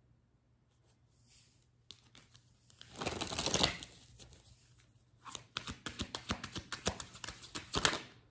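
A deck of reading cards being shuffled: a short dense riffle about three seconds in, then a longer run of quick card flicks from about five seconds in until near the end.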